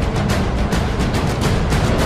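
Orchestral film-score music: a fast, steady pulse of sharp percussion strokes over a dense, heavy low end.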